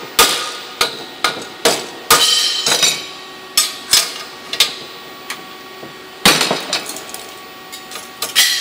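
Hammer blows on metal while an alloy bar is bent in a jig on a steel workbench: about a dozen sharp, irregular strikes, several leaving a short metallic ring.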